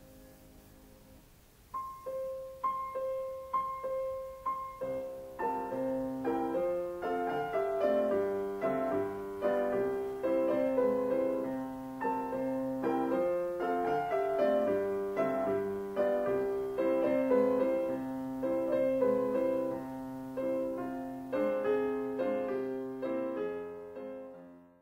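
Solo piano music. After a brief hush, one high note is struck four times about a second apart, then the piece fills out with chords over a bass line and stops at the very end.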